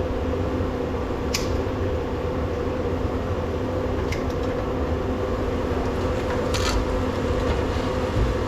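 Steady drone of a running shop heater's fan with a low hum, with a few light clicks from parts being handled about a second, four and six and a half seconds in.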